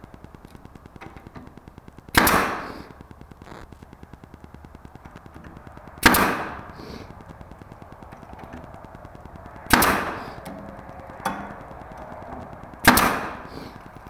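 Cordless battery brad nailer firing brads into wood: four sharp shots a few seconds apart, with one lighter click between the third and fourth.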